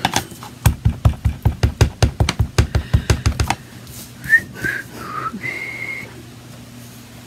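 A rubber stamp on a clear acrylic block tapped quickly and repeatedly on an ink pad, about twenty dull taps in three seconds, inking it. Then a person whistles a few short notes, the last one held.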